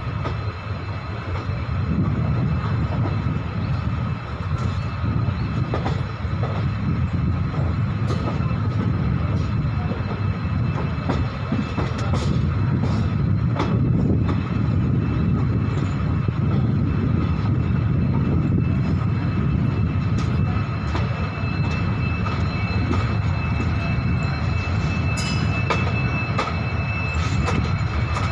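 EMD diesel locomotive humming steadily as a train rolls into a station, with scattered sharp clicks over the running noise.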